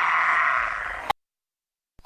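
Dinosaur roar sound effect: the tail of a rough call that fades and cuts off abruptly about a second in, followed by dead silence.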